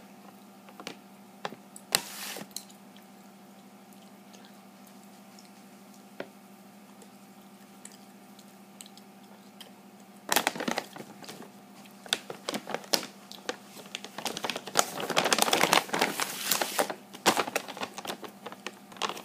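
Plastic snack bags crinkling and rustling in hands. It starts with a few scattered clicks, then bursts of crackling from about halfway through, loudest near the end, over a faint steady hum.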